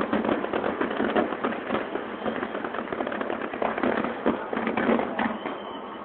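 Aerial fireworks display: a rapid, dense run of bangs and pops from bursting shells, thinning out to fewer, separate reports in the second half.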